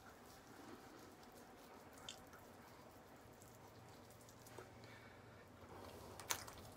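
Near silence with a few faint wet clicks and squishes from a cut lemon slice being rubbed over the skin of the face and lips, with a sharper click near the end.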